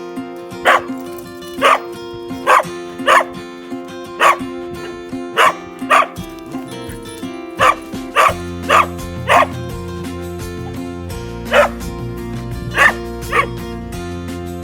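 A dog barking in short single barks, about fourteen in all, irregularly spaced and sometimes in quick pairs, over background music.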